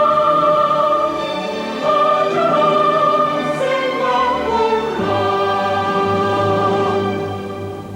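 Music: a choir holding long sung chords with orchestra, changing chord about two seconds in and again about five seconds in, then fading out near the end.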